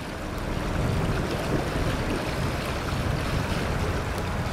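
Creek water rushing over shallow gravel riffles, a steady rush with a low wind rumble on the microphone, fading in over the first second.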